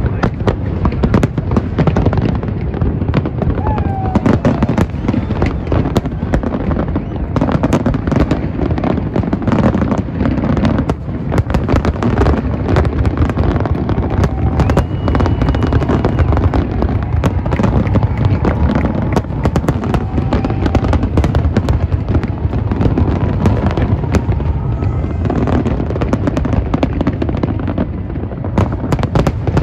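Aerial fireworks display: a dense, continuous barrage of shell bursts, many bangs overlapping with a steady low rumble, with crowd voices underneath.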